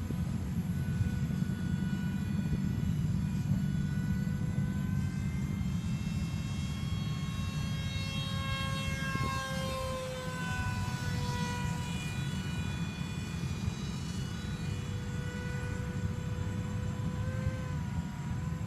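Radio-controlled F-22 model plane in flight: its motor and propeller give a steady whine, whose pitch shifts up and down about halfway through as the plane manoeuvres and passes. A steady low rumble runs beneath it.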